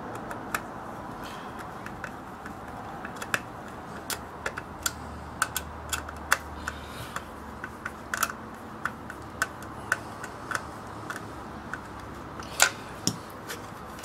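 Irregular light clicks and ticks of a hand screwdriver turning the small screws that hold the circuit board in a plastic alarm-siren speaker housing, with two louder clicks near the end.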